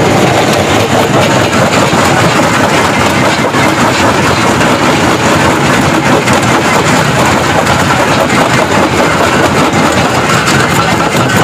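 Stone jaw crusher running, its belt-driven flywheel turning. Loud, steady clatter and crunching as stone is broken between the jaws.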